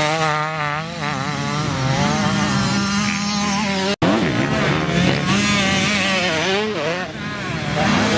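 Motocross dirt bikes racing, several engines revving up and down as the riders work the throttle and shift through corners. The sound drops out for an instant about halfway through.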